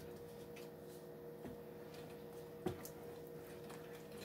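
Wooden spoon stirring a thick white-sauce paste in a nonstick skillet: faint soft scrapes and small clicks, with one sharper knock about two-thirds in, over a steady low hum.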